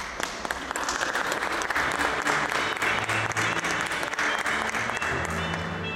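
Audience applauding, with music playing underneath; the clapping starts at once, holds, and thins out near the end.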